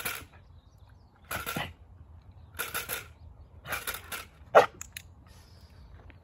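Clatter stick shaken in short rattling bursts about every second and a quarter, four times, followed by one sharp, louder snap about four and a half seconds in. The stick is kept at low intensity to habituate a puppy to its noise.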